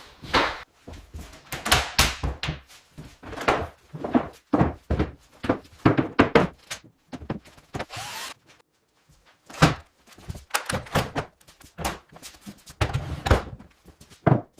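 Irregular series of knocks, thuds and bangs from demolition work, debris being knocked down and cleared, with a short hiss near the middle and a brief lull just after.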